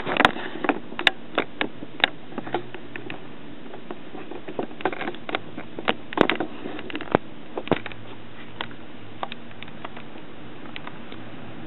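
Vintage Zenith laptop computer giving off irregular sharp clicks and ticks, in clusters in the first couple of seconds and again around six seconds in, then sparser, over a steady low hum.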